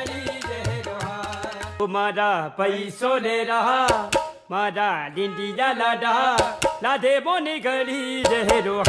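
Background music: a song with a singing voice over a beat. The low drum beat drops out about two seconds in, leaving the voice, and comes back near the end.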